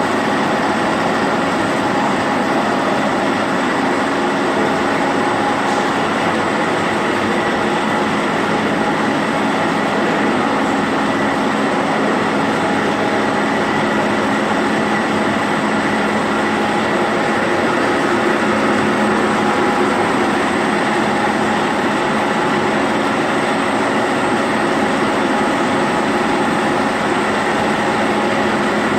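A 7x3 high-speed twisting machine running at speed: a steady, loud mechanical clatter with a constant hum of several steady tones.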